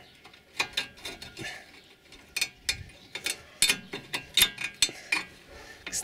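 A steel chisel prying and scraping at the spring clip on a front brake caliper, making a run of irregular metallic clicks and scrapes.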